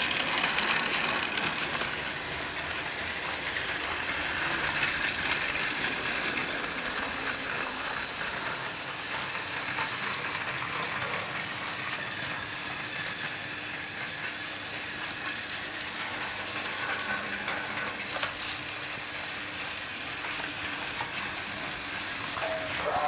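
Battery-powered plastic toy trains, a TOMY Thomas engine and a Tomica CT2000 City Train, running on plastic track with a steady motor whir and rattle of wheels over the track joints.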